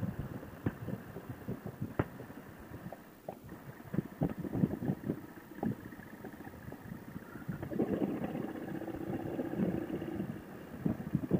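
Motorcycle riding noise through a helmet intercom microphone: uneven wind buffeting over the engine sound. A steadier hum holds for a couple of seconds about eight seconds in.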